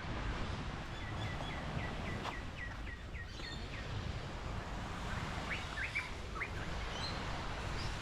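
A bird calling a quick run of about ten short, repeated notes, then a few higher, rising notes a couple of seconds later, over steady outdoor background noise.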